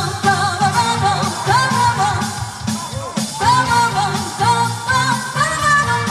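Live band music with a female singer vocalising a wordless "ppa-ba-ba-bam" melody line over the beat, for the audience to sing along.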